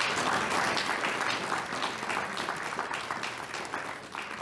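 Congregation applauding, loudest at first and slowly thinning out.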